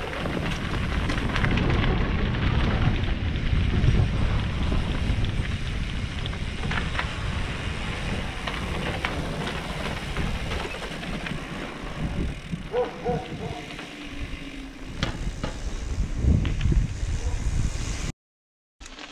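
Mountain bike rolling downhill, tyres running over a rough path and then an asphalt lane, with wind on the microphone and knocks and rattles over bumps. A short pitched squeak about two-thirds through, and the sound cuts out for a moment near the end.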